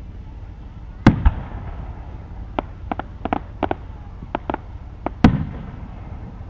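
Fireworks exploding: two loud booms about a second in, then a quick run of sharper cracks and pops, and a heavy boom with a rumbling tail near the end.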